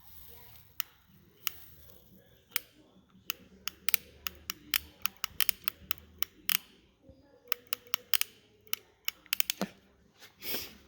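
A rapid, irregular series of sharp clicks and ticks from small tools and wires being handled while soldering a resistor onto wiring, with a brief hiss near the end.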